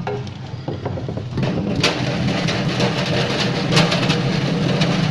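Abrasive-drum potato peeling machine running as potatoes are tipped in. About a second and a half in, a steady low hum comes up, overlaid with the dense rattle and knocking of potatoes tumbling against the spinning grit-lined drum, with a few sharper knocks.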